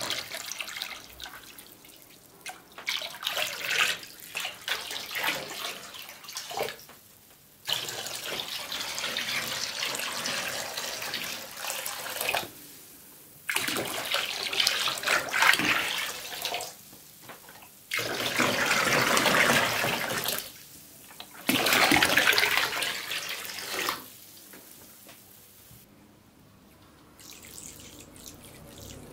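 Liquid pouring from a large plastic bottle into a plastic tub and splashing over a wooden block, in a series of pours of a few seconds each with short breaks between, ending in a faint trickle near the end.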